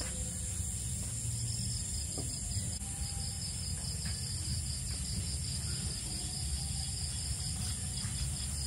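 Night-time crickets chirping: a steady, high-pitched trill with a low hum underneath.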